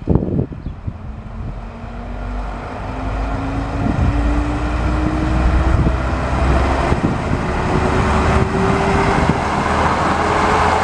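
Class 117 first-generation diesel multiple unit accelerating away and passing close by: its diesel engines work under power, with a pitch that rises steadily as it gathers speed and a sound that grows louder as the cars draw level.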